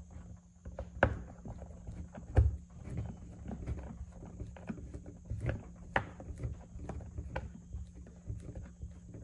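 Irregular small clicks and knocks of a metal hand tool and small bolt against a hard plastic case, as a bolt is started into a freshly drilled mounting hole; the sharpest knocks come about a second in and just after two seconds.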